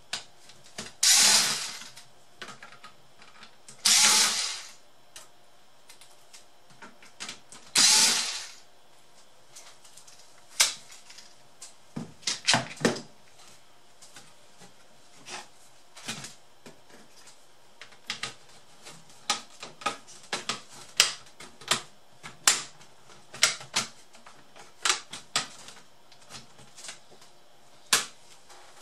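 Disassembly of a plastic laptop case by hand: three short harsh bursts of noise in the first nine seconds, then a long irregular run of sharp clicks and knocks as the case parts and tools are handled.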